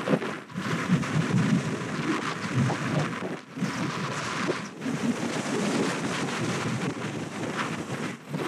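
Wind buffeting the microphone of a moving moped, a gusty rumble with a hiss over it and a few brief lulls.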